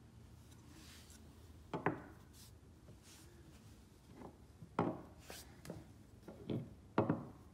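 Small LED light panel handled on a wooden tabletop: a handful of short knocks and rubs, the loudest about two seconds in and near the end.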